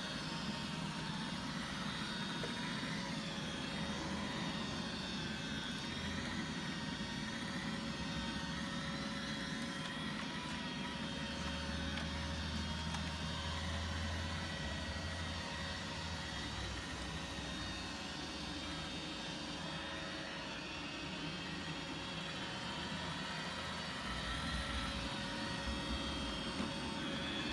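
Roomba robot vacuum running: a steady motor hum with a thin, steady whine over it.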